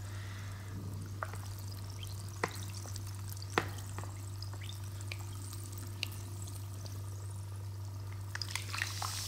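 Carbonated cola fizzing, its bubbles crackling with a scattering of small sharp ticks, over a steady low hum.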